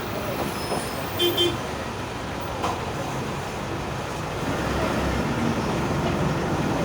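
VW 17-230 OD bus running, its MAN D0834 four-cylinder diesel and freshly reconditioned ZF 6S-1010 gearbox giving the distinctive growl the owner puts down to the rebuilt gearbox; the rumble grows louder about two-thirds of the way through. Two short toots sound about a second in.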